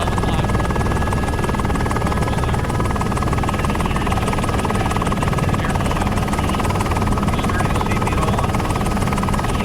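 Helicopter running steadily as heard from on board a news helicopter: a constant low rotor rumble with fast, even blade pulsing and a steady high whine.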